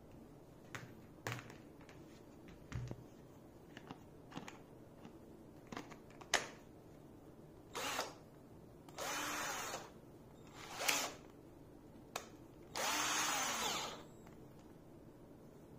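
Clicks and taps of a battery pack being handled and fitted to a 48V cordless drill, then the drill's motor run four times in short bursts, the last and longest a little over a second. The test-runs show that the battery charged from a laptop charger works.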